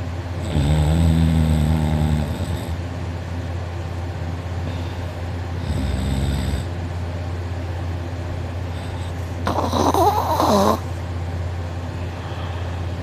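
A sleeping man snoring loudly through an open mouth: a long snore near the start and a weaker one about six seconds in, over a steady low hum. About ten seconds in comes a louder, higher sound whose pitch wavers up and down.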